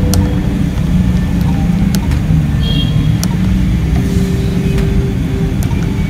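A few light clicks of control-panel buttons being pressed on a laser printer, over a steady low rumble. There is a short high beep about two and a half seconds in.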